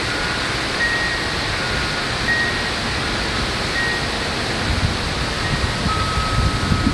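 Steady hiss of heavy rain and wind in a severe thunderstorm, with a low rumble building over the last couple of seconds.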